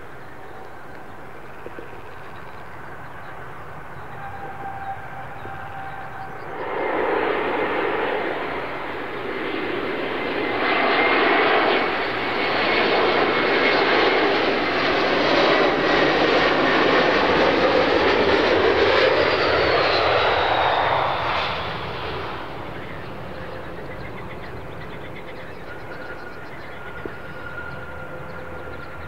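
Airliner engines passing by: the noise swells about six seconds in, holds loud for about ten seconds with a whine falling in pitch as the aircraft goes past, then fades away.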